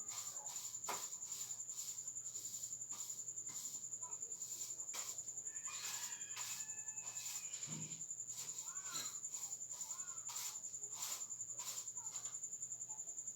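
Insects calling: a steady high-pitched trill with sharp chirps repeating two or three times a second, and a few faint distant calls.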